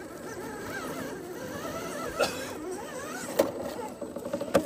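Scale RC crawler's electric motor and gears whining, the pitch rising and falling with the throttle. Three sharp clacks about two, three and a half and four and a half seconds in.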